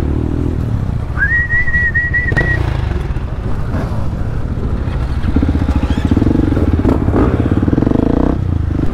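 Supermoto motorcycle engine running under way. The engine note grows louder and buzzier from about five seconds in until near the end. A single high, steady whistle sounds for about a second and a half near the start.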